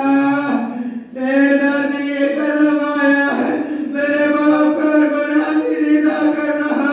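A man's voice chanting a mourning lament (majlis recitation) in long, held melodic phrases, with brief breaks between phrases.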